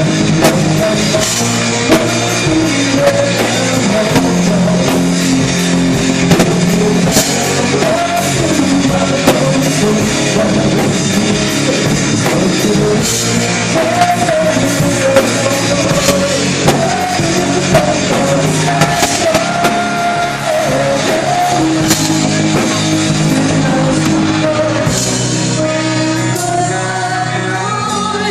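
Rock song with a singer over a band with drums and guitar.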